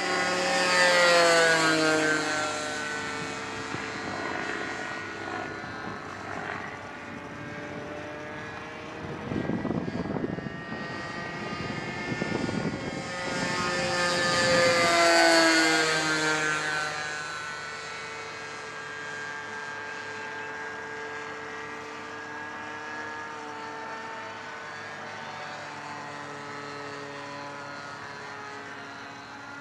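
Engine and propeller of a radio-controlled Ultimate aerobatic biplane flying overhead with a steady drone. It swells as the plane passes close, about a second in and again around the middle, and the pitch drops after each pass; the drone then fades as the plane moves away. A stretch of rumbling noise runs just before the second pass.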